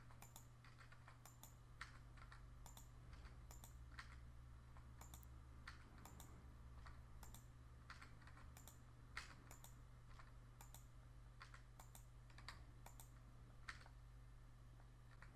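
Faint computer keyboard key presses and mouse clicks, coming irregularly about one and a half times a second, over a low steady hum. The same key is pressed over and over, and an item is clicked in a pop-up menu each time.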